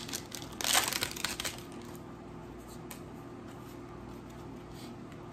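Foil wrapper of a Pokémon booster pack crinkling and tearing as it is opened, a short burst of crackling about half a second in that dies away after a second or so. A faint steady hum sits underneath.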